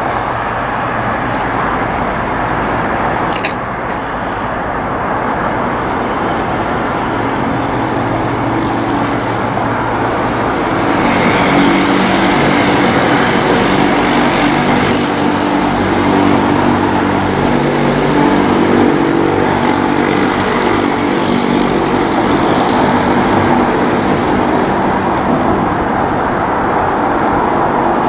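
Street traffic noise, with a vehicle engine running steadily nearby that grows louder about ten seconds in.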